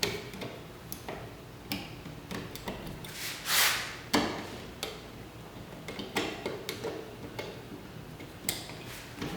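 Scattered light clicks and knocks of a screwdriver and a wall switch being worked into a steel electrical box, with one longer scrape about three and a half seconds in.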